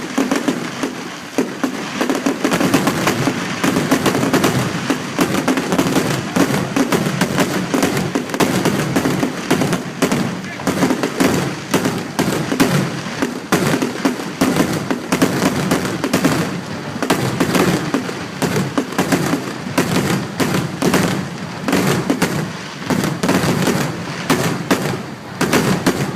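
Fireworks display: a dense run of bangs and crackling pops, several a second, over the voices of a crowd.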